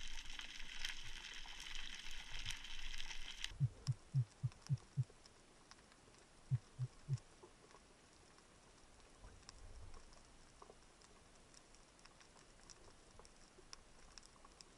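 Underwater ambience: a dense crackling hiss that drops away about three and a half seconds in, leaving a faint crackle. Just after the drop come six low thumps in quick, even succession, then three more a couple of seconds later.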